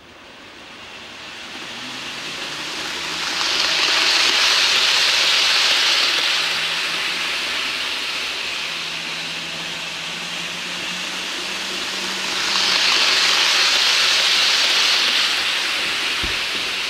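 Double-headed OO-gauge Heljan class 47 model diesel locomotives hauling four Hornby Mark 3 coaches: the running sound of the wheels on the rails and the motors. It builds up from near silence and swells twice, loudest about four to six seconds in and again about thirteen to fifteen seconds in.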